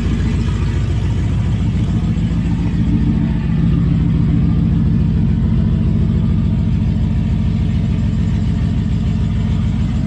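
LS1 5.7-litre V8 in a Nissan Patrol running at a steady idle just after starting, a little louder from about three and a half seconds in. The exhaust still has a leak the owner is out to fix.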